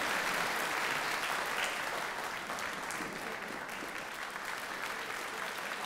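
Audience applauding with dense, steady clapping that eases off a little toward the end.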